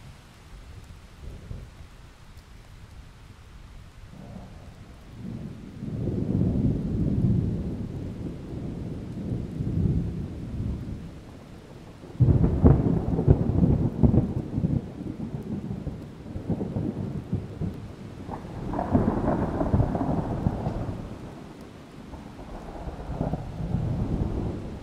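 Distant thunder over a steady hiss of rain. A rolling rumble builds from about five seconds in; a sharper, louder clap breaks about twelve seconds in and rumbles on; two more rolls follow near the end.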